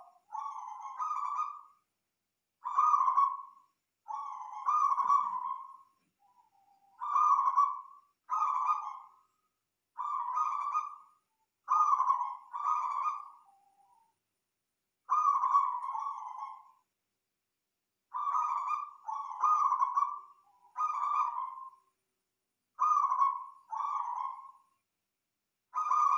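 Zebra dove (perkutut) cooing: a string of short coo phrases, often two in quick succession, with silent gaps of a second or two between groups.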